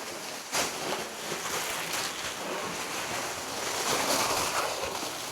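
Crinkly rustling of foam-backed foil underlay being handled and laid out over the floor.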